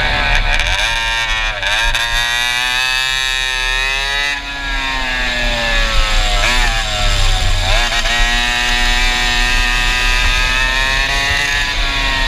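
Racing kart engine through its Stinger exhaust, at full throttle on track: the pitch climbs steadily as it accelerates and drops sharply four times as it lets off for corners, then climbs again.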